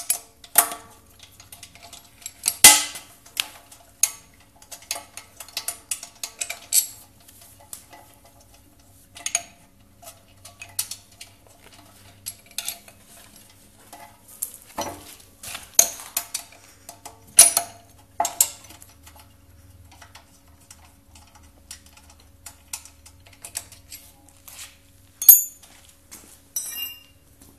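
Irregular metal clicks and clinks of a 13mm wrench working loose the pump mounting bolts of a pressure washer, with a few louder knocks and a brief high ringing clink near the end.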